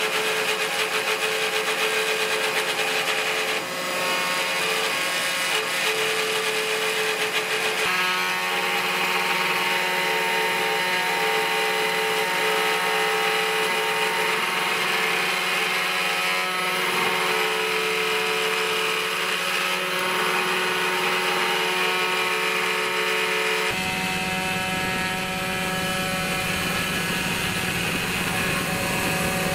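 Mini CNC spindle running a single-flute carbide end mill through aluminium plate: a steady machine whine of several tones with the rasp of cutting. The tone shifts slightly a few seconds in, and a low hum comes in near the end.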